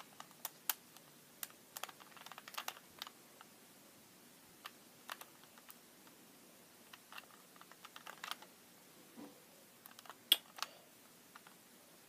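Plastic 3x3 Rubik's cube being turned by hand: scattered, irregular clicks as its layers snap round, coming in small clusters, the loudest about ten seconds in.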